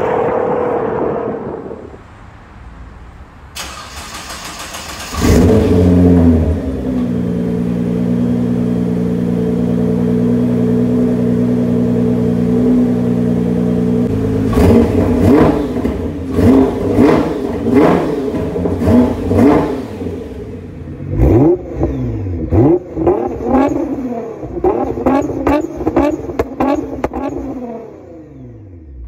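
2014 Nissan GT-R twin-turbo V6 through an HKS Legamax titanium cat-back exhaust with catless downpipes. It opens with the car passing and fading away. About four seconds in, the starter cranks and the engine catches with a loud flare, then settles into a steady idle. From about the middle it is blipped repeatedly, and the later blips end in turbo blow-off valve flutter from HKS SSQV4 valves.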